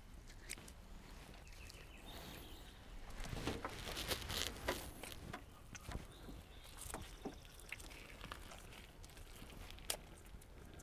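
Faint, scattered rustles and small clicks of wet feathers being pulled by hand from a scalded chicken carcass, busiest a few seconds in.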